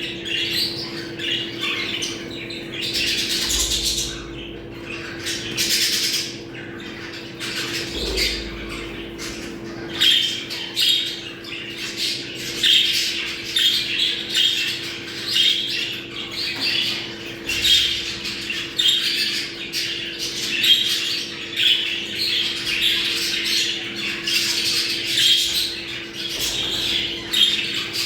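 A flock of budgerigars chattering, warbling and squawking continuously: the excited chatter of budgies in breeding condition.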